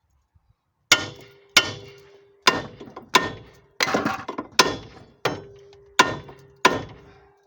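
Hammer blows on steel front-suspension parts, about nine sharp metallic strikes at an even pace, each ringing briefly. They are working the lower ball joint loose from the steering knuckle.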